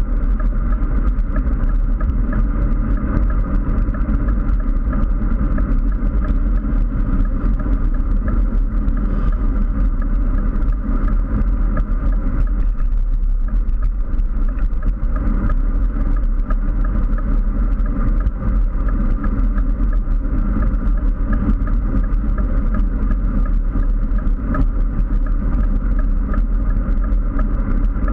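Steady rush of wind buffeting a handlebar-mounted GoPro as a road bike rides at speed, heavy in low rumble, mixed with road noise from the tyres on asphalt.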